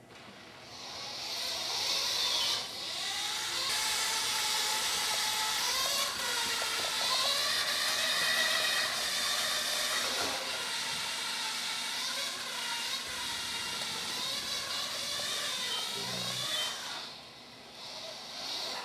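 Small wheeled robot rover's electric drive motors running as it drives across the floor: a steady hiss with a whine that wavers up and down in pitch. It fades out briefly about seventeen seconds in.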